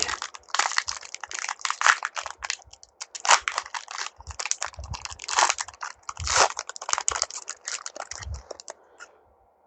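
Foil booster-pack wrapper crinkling and crackling in the hands as it is handled and torn open, in an irregular run of crackles that dies away near the end.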